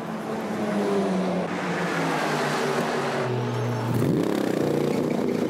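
Mercedes-Benz SLS AMG GT3 race car's V8 engine running in the pit lane at the end of a pit stop. Its note drops low, then rises in a rev about four seconds in.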